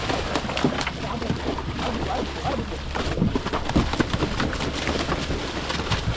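A fishing boat's engine hums low and steady at sea, under a constant noisy wash of wind and water.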